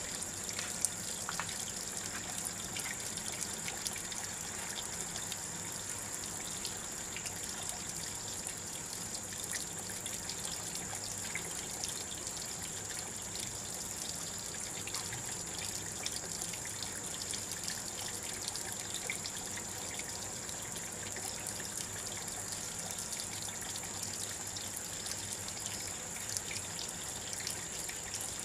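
A stream of water pouring and splashing steadily, with small knocks from hands working under it and a steady high-pitched whine behind.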